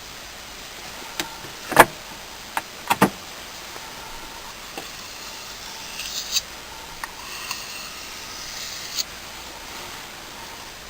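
Sharp knocks and clicks of hard objects being handled on a workbench, the loudest about two seconds in, followed by a few short scrapes; this is the setting up of the dual-grade Japanese water stone in its wooden block for the finer side.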